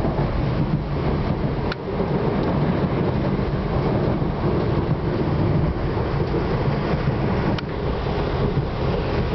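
PATCO Speedline train running, a steady low rumble with two sharp clicks about six seconds apart.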